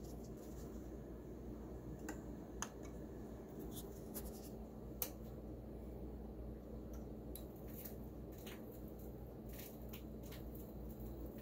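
Faint crackle and scattered pops of a stylus riding a vinyl record on a Technics SL-6 turntable, over a low steady hum; no music is heard. The clicks come irregularly, the sharpest about two and a half seconds and five seconds in.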